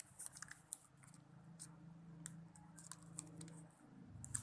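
Faint clicks and crinkles of a plastic Tolak Angin sachet being handled as its liquid herbal remedy is emptied into a glass, over a faint low hum. The clicks come thickest in the first second, then thin out.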